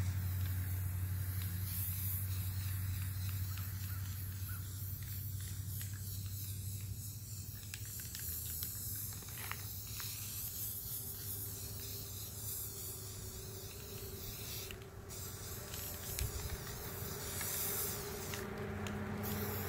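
Aerosol spray paint can (Rust-Oleum gloss apple red) hissing in long sprays, with brief breaks near the end, over a low steady hum.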